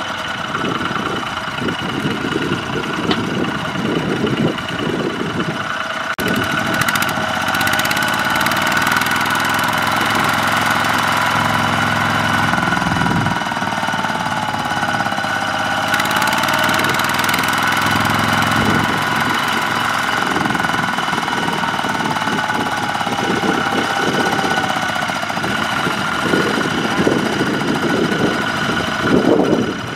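Single-cylinder diesel engine of a two-wheel walking tractor running under load as it drags a rice-laden cart through deep mud, a steady chugging knock with a whine above it that rises and falls in the middle stretch.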